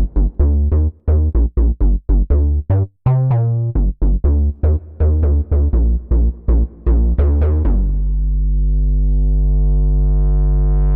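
Waldorf Pulse 2 analog monosynth playing a bass preset: a fast pattern of short plucky notes, each with a bright attack that quickly fades. Near the end a long low note is held, its tone slowly brightening, and it cuts off suddenly.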